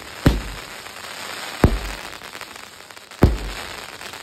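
A 16-shot fireworks cake firing: three loud bangs about a second and a half apart, with a crackling hiss of burning stars between them.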